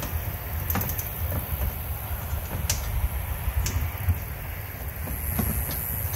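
A few scattered sharp clinks and clicks of hand tools on engine metal over a steady low rumble.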